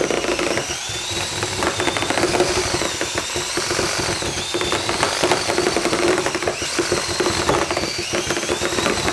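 Cordless drill running a long five-sided-shaft mixing paddle through drywall mud in a metal mud pan. The motor whine wavers up and down with the load, over a rapid clatter of the paddle beating against the side of the pan, a little more noisy than the other mixers.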